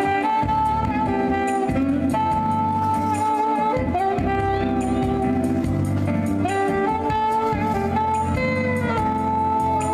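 Live saxophone-ensemble jazz: an alto saxophone plays a slow melody of long held notes, each lasting about a second, over a lower moving accompaniment.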